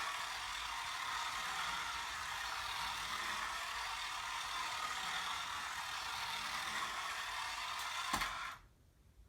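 Battery-powered toy Lamborghini car's small electric motor and gears whirring steadily as it runs, cutting off suddenly near the end.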